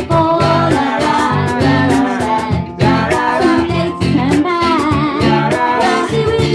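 Live band playing: strummed acoustic guitars and a bass guitar, with a woman singing into a microphone.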